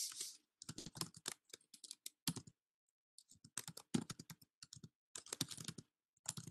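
Typing on a computer keyboard: quick runs of faint keystrokes, with a short pause between two runs near the middle.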